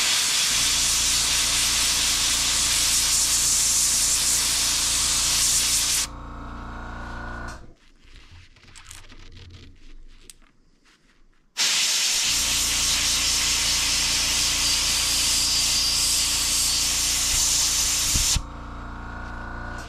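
Airbrush spraying paint onto a crankbait in two long bursts of hiss, about six and seven seconds each, with a steady low hum underneath that carries on briefly after each burst stops.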